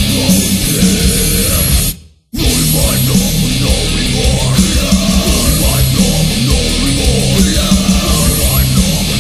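Heavy stoner rock music with guitar. The whole band stops dead for a fraction of a second about two seconds in, then comes straight back in.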